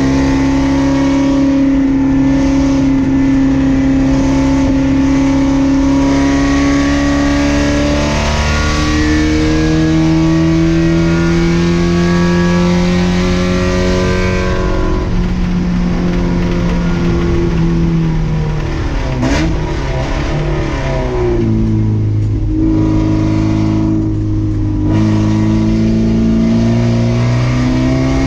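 Race car engine heard from inside the cockpit, pulling hard at near-steady revs with the pitch slowly climbing. About two-thirds through the revs fall away with a quick rev blip as the car slows, and near the end it is back on the throttle.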